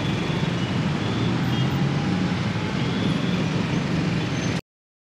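Traffic noise in a stopped jam: motorcycle and car engines idling close by, with the hum of the street around them. The sound cuts off suddenly near the end.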